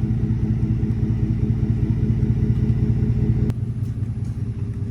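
An engine running steadily with a low, even pulse. About three and a half seconds in it cuts abruptly to a slightly quieter engine sound.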